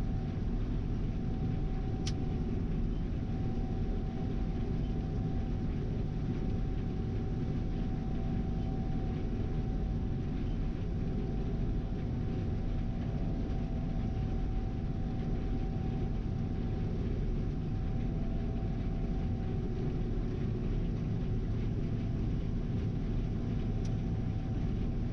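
Gleaner R72 combine running steadily while harvesting soybeans: a constant low machine drone with a steady hum over it and two faint ticks, one about two seconds in and one near the end.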